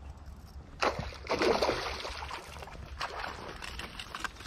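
A hooked trout splashing and thrashing at the water's surface close in. A sudden splash about a second in, then a burst of splashing, with more splashes near the end.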